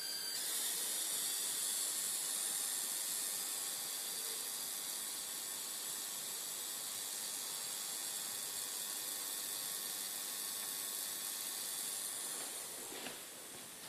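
Philips 42PFL7862D LCD TV squeaking: a high-pitched hiss with a faint whine in it, starting suddenly and running steadily for about twelve seconds before fading, with a click near the end. It is the fault noise that comes with the set's black screen.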